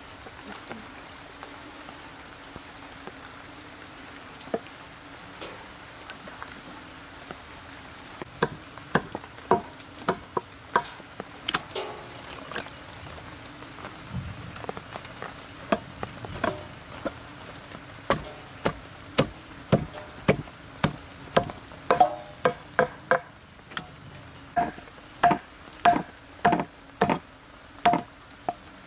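Meat cleaver chopping through beef ribs on a wooden chopping block. Sharp chops come scattered from about a third of the way in, then closer together at about two a second, and settle into a steady run of about one and a half a second near the end.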